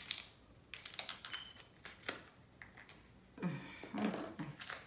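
Plastic baby food squeeze pouch being handled and its screw cap twisted, a run of small irregular clicks and crinkles.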